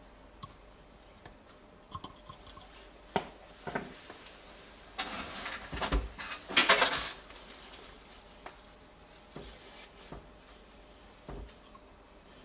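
Hands handling small parts and tools at a workbench: scattered light clicks and taps, with a louder burst of clatter lasting about two seconds from about five seconds in.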